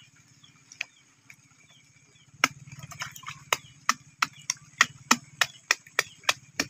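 Sharp, evenly spaced taps, about three a second, starting about two and a half seconds in, over a steady low hum.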